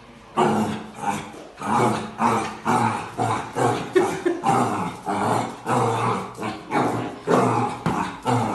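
A dog vocalizing in a steady string of short calls, about two a second.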